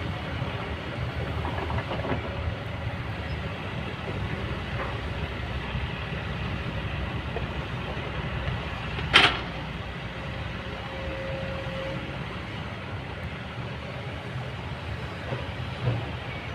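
Kobelco excavator's diesel engine running steadily with a low rumble, with one sharp, loud clank about nine seconds in.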